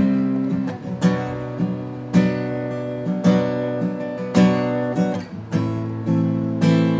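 Acoustic guitar being strummed, with a chord struck about once a second and lighter strokes in between, the chords ringing on.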